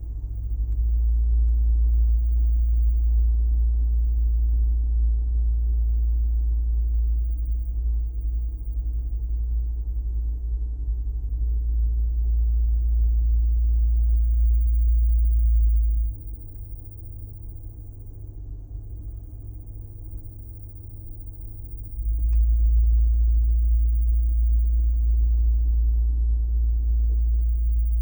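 A deep, steady low-pitched drone, the Corsair's 'drone noise'. It comes on about half a second in, cuts out suddenly about 16 seconds in, and returns just as suddenly about 22 seconds in.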